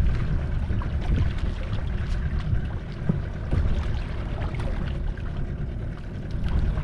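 Steady low rumble and wash of a fishing boat at sea.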